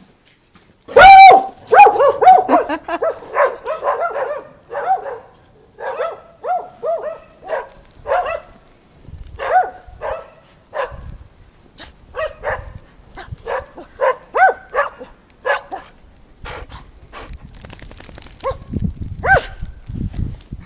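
Dog barking in a rapid string of short, high barks that starts about a second in, thins out after about 16 s, and ends with one last bark near the end.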